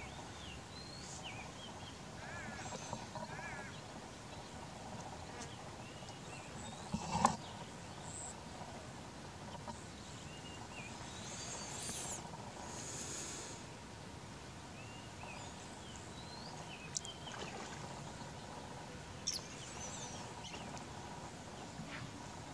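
Birds chirping and calling in short, scattered notes over steady outdoor background noise, with one sharp knock about seven seconds in that is the loudest sound.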